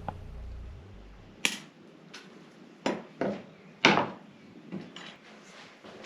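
Bonsai shears snipping shoots off a tree: a run of about ten sharp metallic snips at uneven intervals, some in quick pairs.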